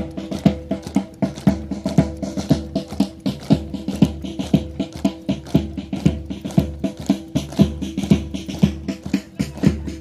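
Music with a steady, quick drum beat over held, unchanging notes.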